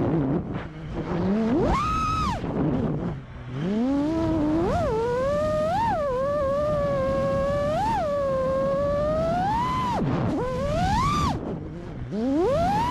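FPV quadcopter's brushless motors whining under throttle. The pitch rises and falls constantly as the pilot punches out and chops the throttle, dropping low several times.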